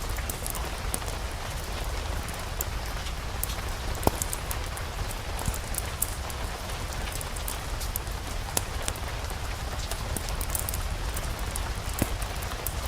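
Steady rain falling over a low rumble, with many fine crackles and a few louder sharp pops scattered through.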